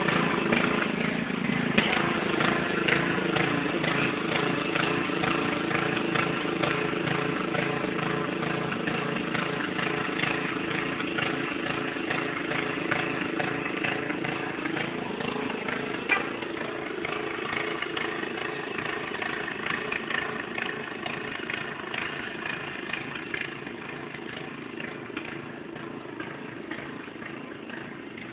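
Riding lawn mower engine running steadily, growing fainter as the mower drives away.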